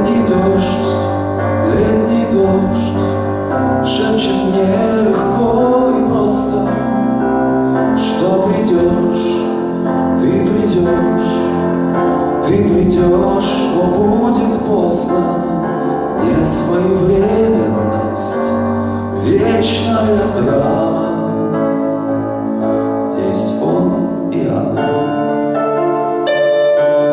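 A man singing a slow song live into a microphone, accompanying himself on a Yamaha electronic keyboard with piano-like chords. Near the end the voice stops and the keyboard holds on alone.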